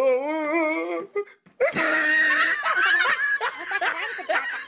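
People laughing: one drawn-out, wavering laugh, a short break about a second in, then several voices laughing and chattering at once.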